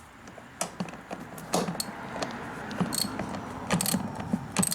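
Metal hand tools clinking and rattling as a wrench and socket are handled and fitted onto seat bolts. Several sharp metallic clinks ring briefly, the loudest about three seconds in and again near the end.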